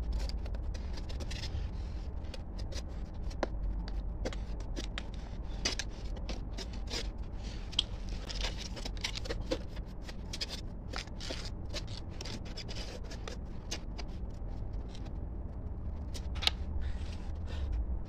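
Gloved hand scraping and pressing wet cement against the pipe form and mould of a cement stove casting: irregular scrapes and small clicks over a low hum.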